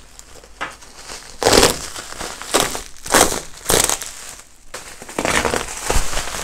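Thick plastic bubble wrap being pulled and crumpled by hand, rustling and crinkling in irregular bursts, the loudest about a second and a half in and again around three to four seconds in.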